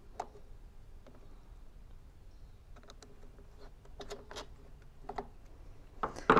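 Phillips screwdriver backing out the long carburetor-mounting screws on a small leaf blower engine: scattered light clicks and ticks of the tip working in the screw head, with a louder knock near the end.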